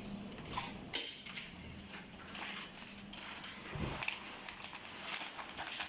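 Plastic bag being handled at a foot-pedal bag sealer: scattered rustles and small clicks, with a low knock about four seconds in.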